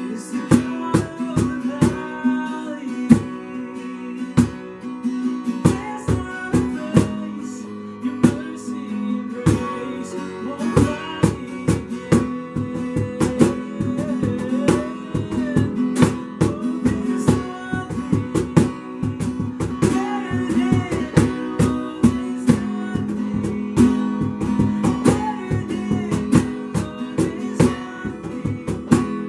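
Acoustic guitar strumming a worship song's instrumental passage, a steady run of strokes over held chords.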